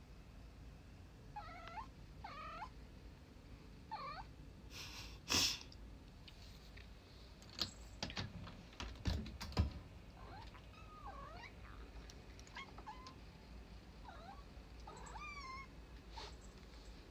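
A domestic cat gives repeated short meows, about eight, each with a quick rise and fall in pitch. A few knocks and bumps come in the middle, the loudest about five seconds in.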